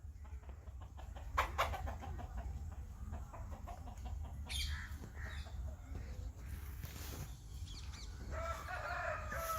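Birds calling, with a high call about halfway through and a run of short calls near the end, over a steady low rumble.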